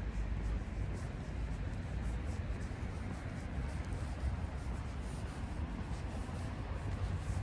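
Walking footsteps scuffing on a park path, heard as faint repeated scratchy steps over a steady low rumble.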